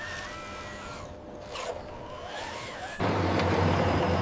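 Truck engine sound: a faint gliding whine, then about three seconds in a loud, steady engine rumble cuts in abruptly.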